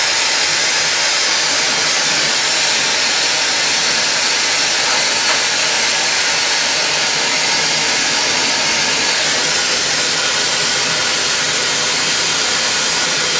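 Hand-held glassworking torch burning with a steady hiss as its flame heats glass spinning on a glass lathe.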